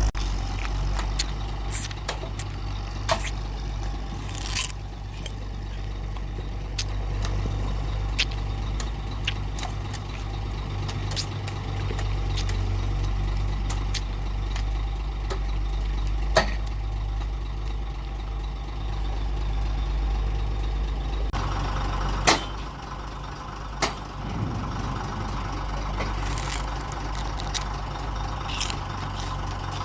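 Heavy engine of cane-lifting machinery running steadily, with a few sharp knocks and clanks now and then, the loudest about two-thirds of the way through.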